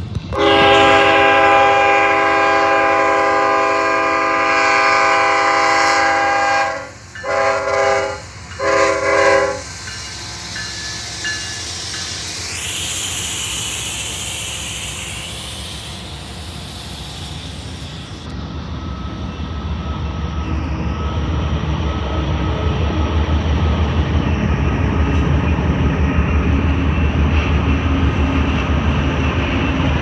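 Union Pacific freight locomotive's multi-chime air horn sounding one long blast of about six seconds, then two short blasts. After that the low rumble of the slow-moving diesel locomotives builds steadily as they pass close by.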